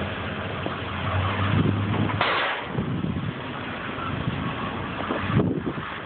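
A motor vehicle engine idling, with rubbing and knocking from a phone being handled against its microphone. The engine's low hum is plainest in the first two seconds; a sudden scuffing noise comes about two seconds in, and another shift comes near the end.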